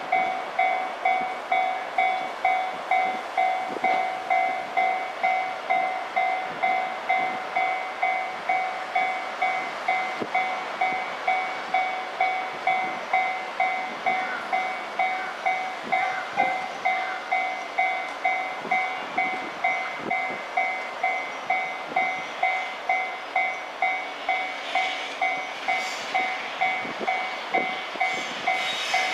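Japanese railway level-crossing warning bell ringing, an electronic two-tone ding repeating evenly a little under twice a second, warning that a train is approaching.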